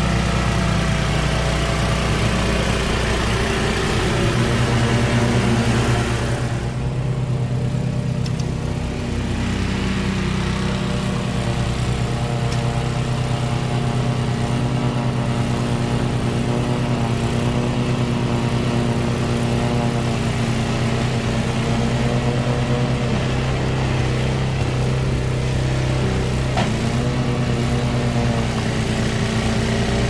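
MTD-built Yardworks two-stage snowblower engine running under load while throwing snow, a steady engine drone with the hiss of the snow stream over it. The engine speed sags briefly near the end, the kind of bogging the owner puts down to a probably dirty carburetor.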